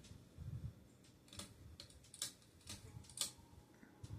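Faint, sharp ticks, roughly two a second and not quite evenly spaced, over a low rumble from a Gulf Coast ceiling fan switched to high speed.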